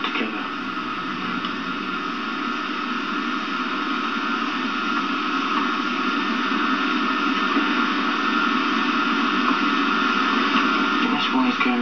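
Steady hiss with a low hum underneath, even throughout, like static or tape noise.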